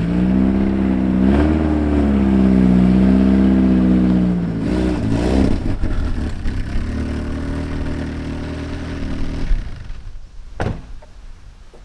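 BMW E36 car engine running just after starting, revved up twice, then held steady before fading away; a single clunk near the end.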